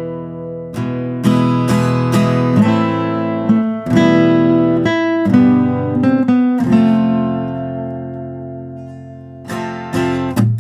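Background acoustic guitar music: plucked and strummed notes that ring and die away, thinning out into a long fading chord before a quick run of strums near the end.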